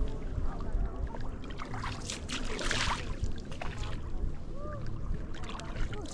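Paddleboard paddling: water washing and dripping as the paddle pulls through the lake, with one louder splash of a stroke about halfway through.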